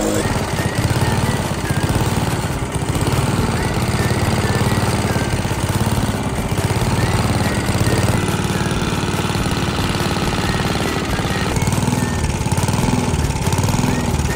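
Silver Eagle petrol walk-behind rotary lawn mower running steadily while cutting grass, its engine loudness surging a little as it takes the load.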